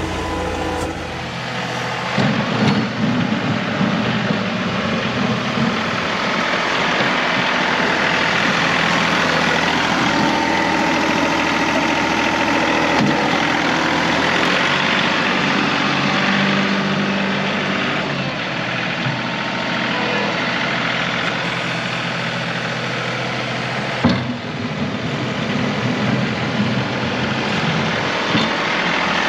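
John Deere 2038R compact tractor's diesel engine running steadily while plowing snow, with one sharp knock about 24 seconds in.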